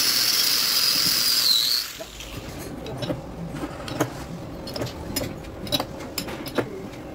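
Angle grinder with an abrasive disc grinding the weld on a steel truck driveshaft tube, a loud steady high-pitched whine that sags slightly and stops about two seconds in. After that come scattered sharp metallic clicks and knocks.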